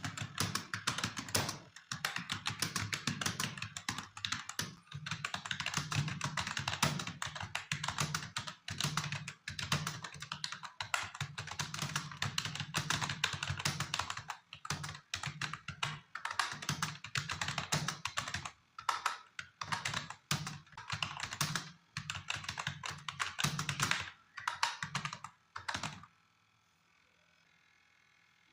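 Fast typing on a computer keyboard: rapid runs of key clicks in bursts with short pauses between words and phrases, stopping about two seconds before the end.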